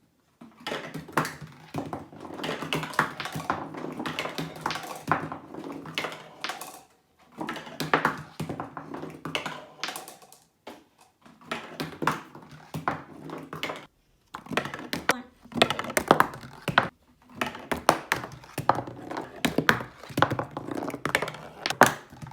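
Marbles rolling down a marble run, a rumble of rolling punctuated by many clicks and knocks as they hit the track's turns and drops. The runs come one after another, with short pauses between them.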